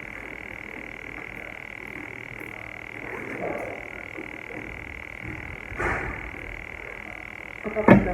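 A steady high-pitched background drone, with a few soft handling rustles and knocks, the loudest cluster near the end.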